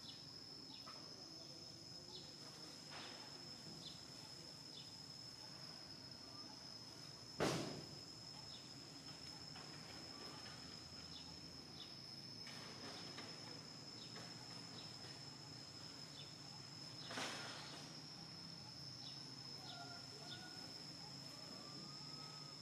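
Insects droning steadily at one high pitch, with faint scattered ticks; two sharp knocks stand out, one about seven seconds in and a weaker one about seventeen seconds in.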